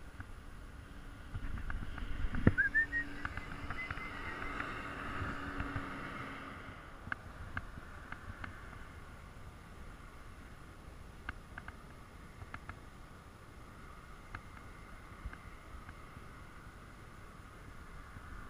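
Wind buffeting the microphone, with a knock about two seconds in. Then comes a short series of thin, high whistled chirps, the first one rising, from an osprey calling overhead. Scattered faint ticks follow.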